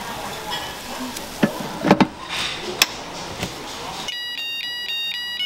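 Tongs and a stainless-steel waffle iron clattering, with sharp metal knocks about one and a half and two seconds in as the iron's lid is shut. About four seconds in, a bright electronic beeping melody of stepped tones starts, and the room noise drops out under it.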